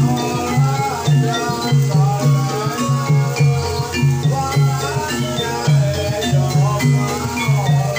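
Live music for a Javanese kuda kepang (ebeg) horse dance: a gamelan-style ensemble playing a steady, repeating low beat under a wavering melodic line.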